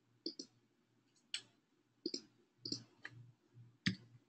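Irregular clicks of a computer keyboard and mouse, about a dozen short taps, some in quick pairs, as an ID number is retyped into a form field.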